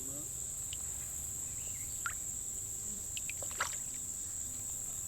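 Steady high-pitched insect chorus, like crickets trilling, over a low rumble of background noise. A couple of brief faint clicks about two and three and a half seconds in.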